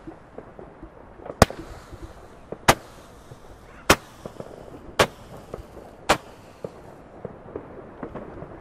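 Roman candle firing five shots, each a sharp pop, evenly spaced a little over a second apart.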